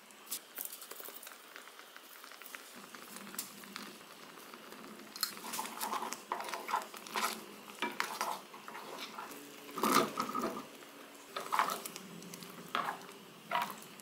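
Wooden spoon stirring and scraping through a thick, creamy rosé tteokbokki sauce in a nonstick frying pan, with soft clicks and knocks against the pan. The knocks get busier about five seconds in, and there is a louder clatter about ten seconds in.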